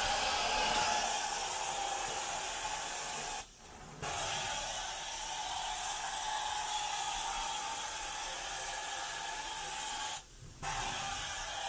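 Carpet-cleaning extraction wand spraying and vacuuming as it is drawn across the carpet, a loud, steady hiss. The hiss cuts out briefly twice, about three and a half seconds in and again near the end.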